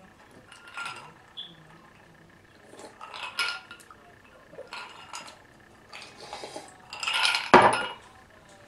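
Close-miked eating and drinking sounds: a few short sips and mouth noises from drinking out of a glass and chewing, with a glass being handled. The loudest noise comes near the end, a sharper knock-like burst.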